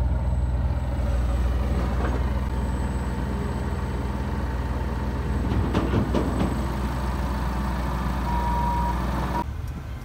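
A large engine, likely machinery at the road-construction site, runs steadily with a low hum. A brief burst of other noise comes about six seconds in, and the engine sound cuts off just before the end.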